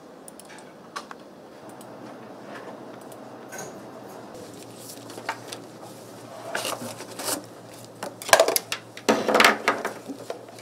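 Clattering and knocking of equipment being handled in a hard plastic carrying case, with scattered sharp clicks. The loudest clatter comes in two bursts, about eight and nine seconds in.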